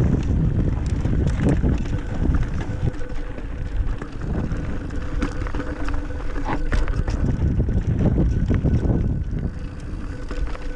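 Intense Bandit Primer mountain bike riding down a rough dirt and rock trail: a steady rumble of wind buffeting the camera microphone and tyres rolling over dirt, with frequent scattered clicks and rattles as the bike hits bumps.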